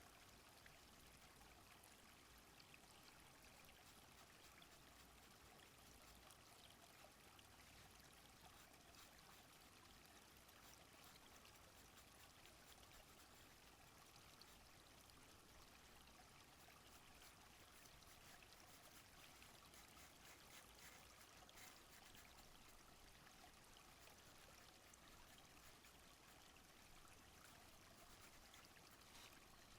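Faint, steady sound of a small stream flowing: an even rush of water with fine trickling.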